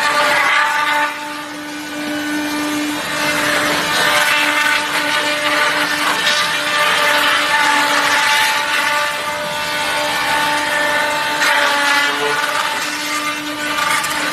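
Wood sawdust machine (log crusher) running under load as logs are fed in: a steady droning hum with a rough grinding rush that swells and eases several times.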